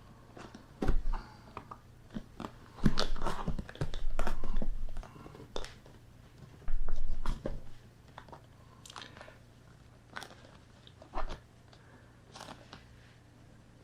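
Handling noises from a flag display case being fitted together: scattered clicks, knocks and scraping, in bursts of a second or so with quieter gaps between.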